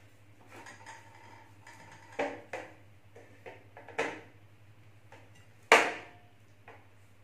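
Kitchen knife cutting into a large pale cucumber on a plastic plate: about five sharp knocks of the blade, the loudest a little before the end, with softer scraping cuts between.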